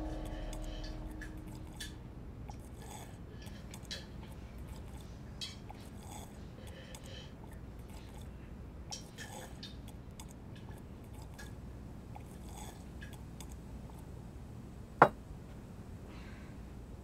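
A person drinking from a glass, heard as faint swallows and small mouth and glass clicks over quiet room tone, with one sharp click about fifteen seconds in.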